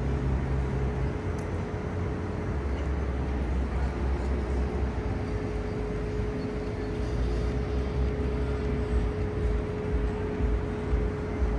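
Steady low engine rumble in a city soundscape, with a constant hum running underneath.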